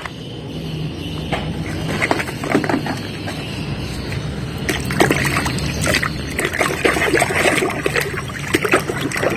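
Water sloshing and splashing, with irregular small splashes and plastic clicks, as a plastic toy fire truck is washed by hand in water.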